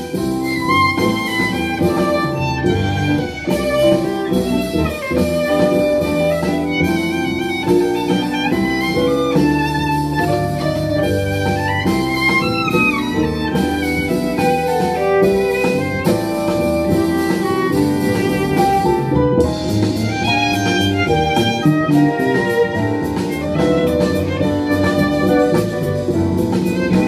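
Violin and double bass duo playing live: the violin bows the melody over a plucked double bass line.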